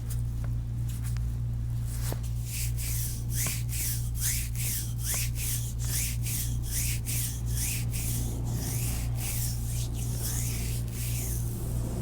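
Hands rubbing and sliding over the skin of a foot during a massage, close-up: a quick, even run of swishing strokes, about three a second, that starts about two seconds in and stops near the end. A steady low hum runs underneath.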